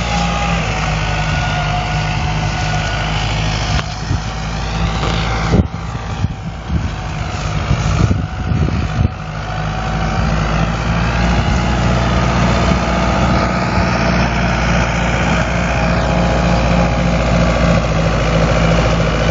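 Fiat 766 tractor's diesel engine running steadily under load while it drives an Agram rotary mower through tall grass. A few irregular knocks break in about halfway through.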